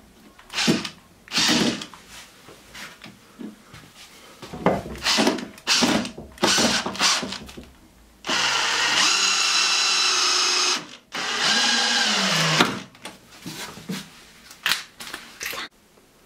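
Einhell TE-CD 18/50 Li-i BL cordless brushless drill driving screws into wood. Handling clatter and knocks come first, then two steady runs of the motor in the second half; the second run winds down at the end.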